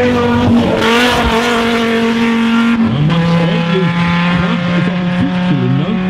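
Rally car engine running hard at high revs, holding one steady note, then dropping to a lower steady note about three seconds in. A short gritty rush of noise comes about a second in.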